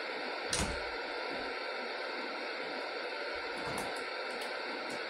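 Steady background hiss, with one short knock about half a second in and a few faint clicks later on.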